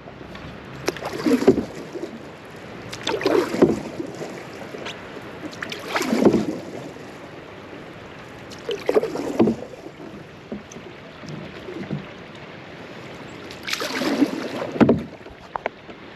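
A person wading through shallow canal water beside a canoe, with five sloshing splashes a few seconds apart.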